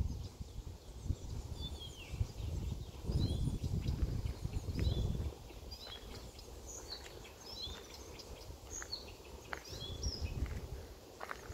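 Marsh warbler singing: a fast, varied string of short high chirps and whistles running on without a break. A low rumbling noise rises under it about three seconds in and drops away near the middle.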